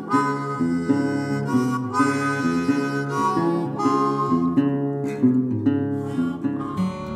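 Intro music: a melody of held, stepping notes, harmonica-like in tone, over a guitar accompaniment.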